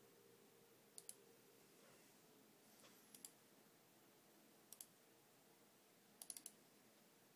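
Computer mouse clicking: three quick double-clicks spread out, then a quick run of three or four clicks near the end, over a faint steady hum.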